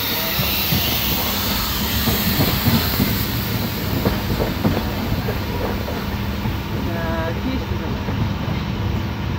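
Passenger train running, heard from inside the coach: a steady rumble with the wheels clacking irregularly over the rails.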